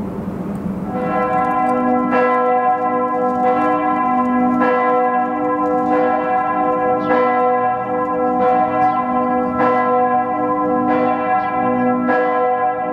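Church tower bells of the Kreuzkirche ringing the noon peal. The bells are struck again about every second and a quarter, each stroke ringing on into the next, and the peal gets louder about a second in.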